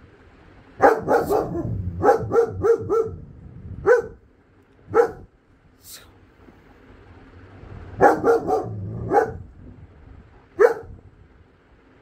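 German Shepherd barking while watching out of a window, in quick runs of several barks with single barks between.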